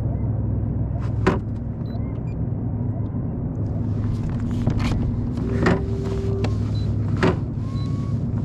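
An engine running steadily with a low drone, with four sharp knocks over it.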